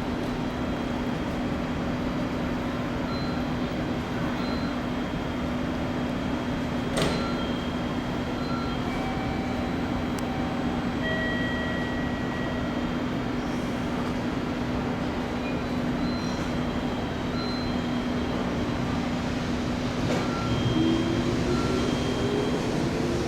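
Two coupled 211 series electric trains standing at a station platform, their equipment giving a steady hum, with scattered short tones and a single sharp knock about seven seconds in. A few seconds before the end the train starts to pull away, with a tone rising in pitch.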